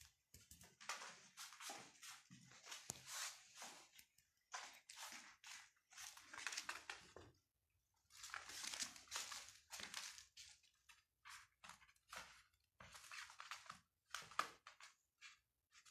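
Quiet, intermittent soft rustling and scratching in short bursts, with no meowing.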